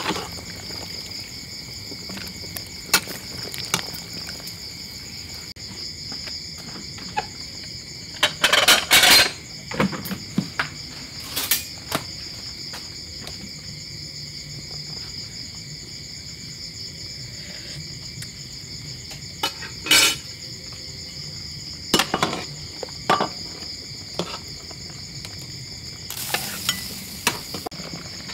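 Metal ladle clinking and scraping against an aluminium cooking pot as fish soup is stirred and ladled into a clay pot, in scattered short clatters. Under them, crickets chirp steadily.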